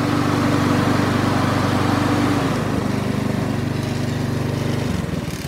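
Honda HRX217 walk-behind mower engine running steadily with the blade engaged and spinning. Near the end the engine note drops and slows into a lower, pulsing idle.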